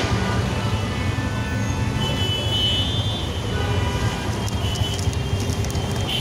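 Steady rumble of street traffic, with a brief high tone about two and a half seconds in.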